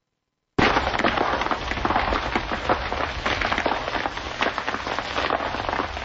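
Wildfire burning through brush, a dense run of sharp crackling and popping over a low rumble, cutting in abruptly about half a second in.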